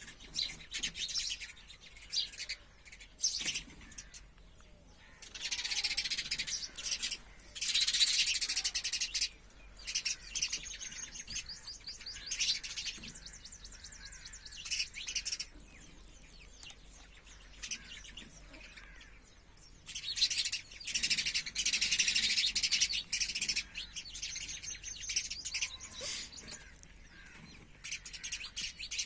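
Small birds chirping and twittering in quick bursts and short trills. There are two longer spells of dense, loud chatter, about six seconds in and again around twenty seconds.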